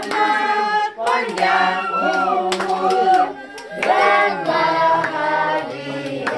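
A group of adults and children singing together, with hand clapping.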